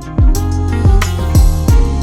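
Background music with a deep bass and a steady kick-drum beat.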